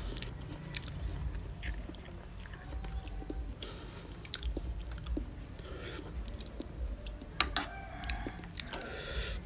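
Close-up chewing of raw oyster: soft wet mouth sounds, with scattered light clicks from the oyster shells being handled and one sharper click about seven seconds in.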